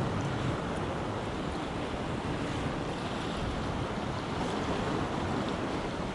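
Pacific surf washing and breaking around shoreline rocks, a steady rushing wash, with wind buffeting the microphone.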